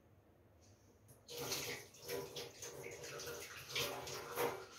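Water running from a tap, with hands being washed under it, starting a little over a second in.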